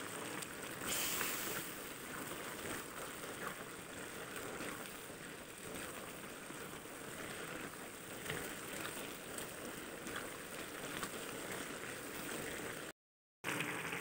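Ash gourd and mustard greens bubbling steadily in a wok of their own released liquid, with a brief louder hiss about a second in. The sound drops out for a moment near the end.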